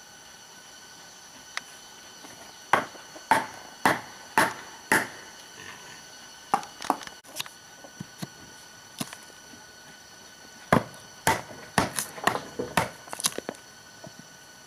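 A tool chopping into wood in sharp blows: a run of five about half a second apart, a few scattered strikes, then a quicker run of about ten.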